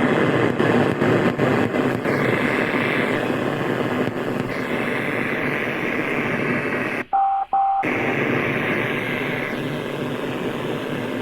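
Weak FM CB signal coming through a Xiegu G90 transceiver's speaker: a steady hissy, crackly rush in which any speech is buried. About seven seconds in the signal drops out briefly, a short beep sounds in the gap, and then the noisy signal comes back.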